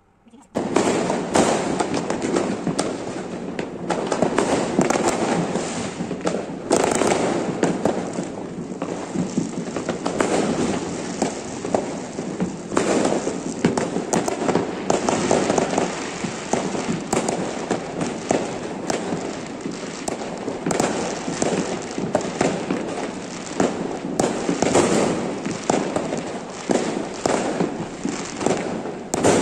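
Many fireworks and firecrackers going off at once: a dense, continuous crackle of pops and bangs that starts suddenly about half a second in.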